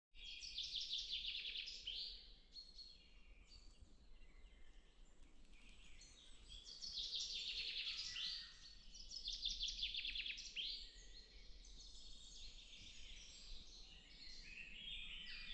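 Songbirds singing in woodland: several bursts of rapid, trilled song about two seconds long each, with quieter chirps from other birds in between.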